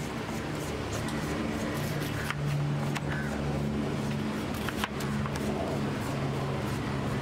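Steady low hum of street traffic, with a few short sharp knocks of a knife against a wooden cutting board as grilled sandwiches are sliced.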